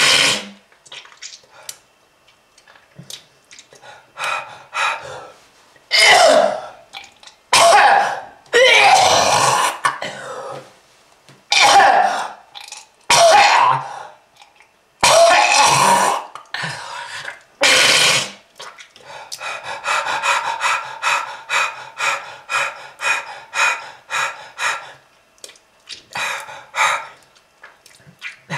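A person coughing in fits. Over the first eighteen seconds there are single loud coughs and a few longer drawn-out bouts, then a fast run of short hacking coughs, about two a second, for the last eight seconds or so. It is presented as a smoker's cough, the sign of smoking-related lung disease.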